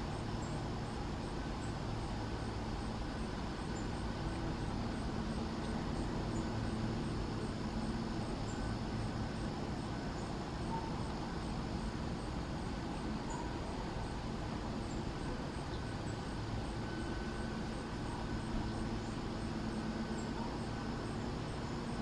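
Steady outdoor background noise with a low hum, and a faint very high chirp repeating about twice a second.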